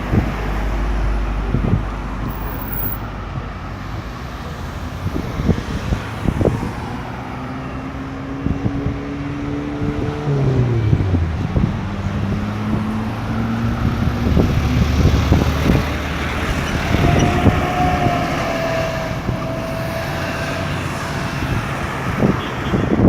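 Busy road traffic at a roundabout: cars and heavier vehicles passing continuously, engines and tyres steady. About halfway through, one engine's pitch drops as a vehicle slows or changes gear, and later a thin whine rises over the traffic for a few seconds.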